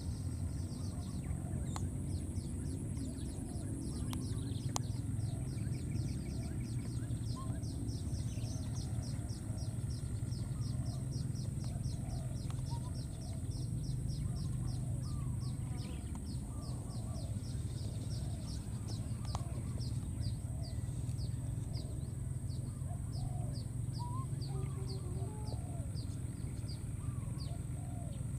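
Outdoor wildlife ambience: a long run of short, falling high chirps, a few each second, over a steady high-pitched insect drone and a low hum.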